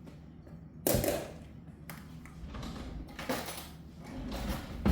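Kitchen handling noises: a sharp knock about a second in, then scraping and rustling, and another knock near the end.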